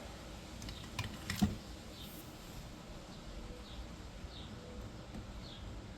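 Two sharp clicks about a second in from handling speaker wiring inside a car door, then quiet handling with a few faint, short high chirps in the background.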